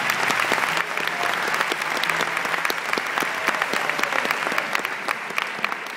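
Theatre audience applauding, the clapping fading away near the end.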